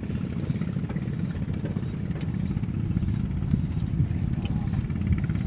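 A small motor, likely a boat engine, running steadily with a low, rapid pulsing, with a few faint clicks over it.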